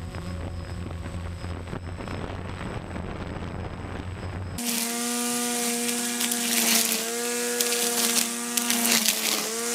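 A steady low hum gives way about halfway through to a 40-volt cordless electric string trimmer running close by. Its motor whines steadily, wavering slightly in pitch, as the spinning line cuts through weeds and grass with a dense crackling hiss.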